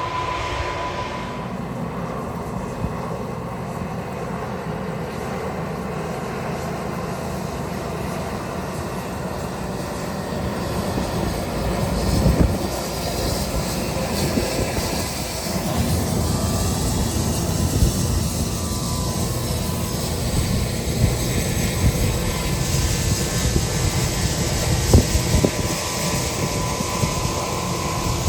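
Large four-wheel-drive tractor's six-cylinder diesel engine running steadily under load while pulling an air drill through the field. The sound grows louder about ten seconds in, with irregular low thumps and rumbles in the second half.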